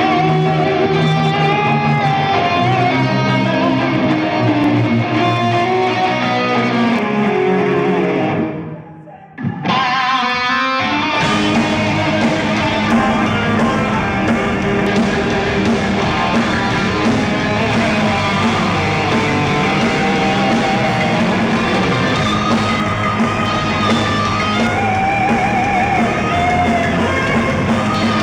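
Rock band playing live with electric guitar in front. About nine seconds in, the music drops away almost to nothing, then comes back about two seconds later fuller and brighter.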